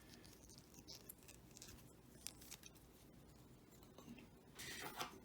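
Near silence with faint handling noise: a few small clicks and a short rustle near the end as small plastic transforming toys are worked by hand.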